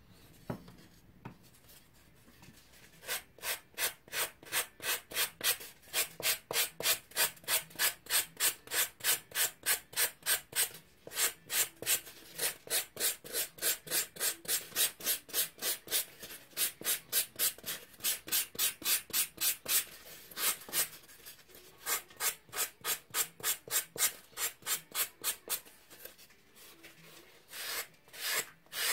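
A 3M sanding pad rubbed back and forth over a doll's pink leg core in quick, even strokes, about two and a half a second. It starts about three seconds in, pauses briefly twice, and picks up again near the end.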